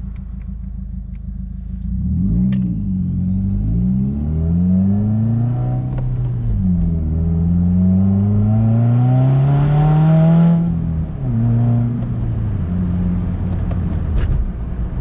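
Subaru WRX's turbocharged flat-four with an open J-pipe (straight downpipe), heard from inside the cabin, pulling hard under acceleration. The engine note climbs in pitch, drops at a gear change about six seconds in, then climbs again with a growing turbo spool hiss. The hiss and the pull cut off suddenly a little past halfway when the throttle closes, and the engine settles to a lower, steadier run.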